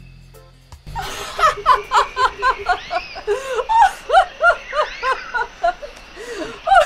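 A woman laughing in a string of high-pitched giggles, beginning about a second in and going on in repeated short bursts.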